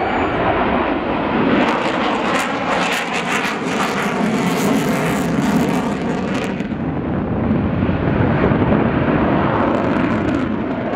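Twin AL-31F afterburning turbofans of a Sukhoi Su-27UB1M Flanker in a display pass at afterburner. The loud jet noise carries a crackling, tearing edge from about a second and a half in. Around six and a half seconds in this eases to a steadier deep rumble.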